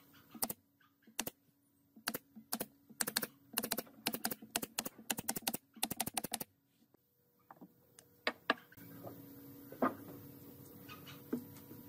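Pneumatic brad nailer firing nails into a wooden frame rail, a quick run of sharp snapping shots, some in close pairs, that stops about six and a half seconds in. A few scattered clicks follow, and near the end a steady low hum comes in.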